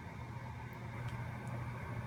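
Quiet room tone: a steady low hum with a few faint, tiny ticks.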